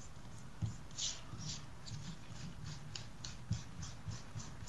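Stylus tapping and scratching on a tablet while writing by hand: a faint run of short, light ticks, about three or four a second, with soft knocks under them.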